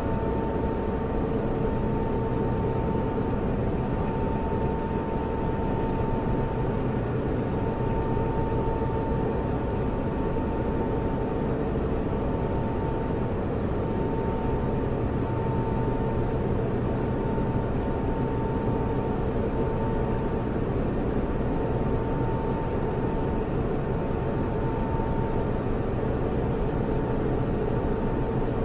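Computer server running steadily, its cooling fans giving an even rushing noise with a constant hum. A higher tone within it swells and fades slightly every few seconds.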